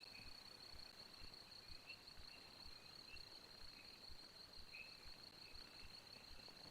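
Faint insects calling: one steady high-pitched trill throughout, with short scattered chirps at a lower pitch over it and faint low pulses about twice a second.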